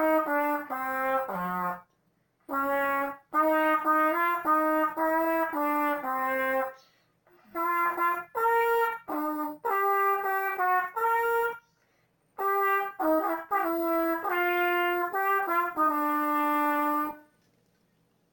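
Solo trumpet playing a band part, one note at a time in four short phrases with brief breaths between them, unaccompanied; the playing stops about a second before the end.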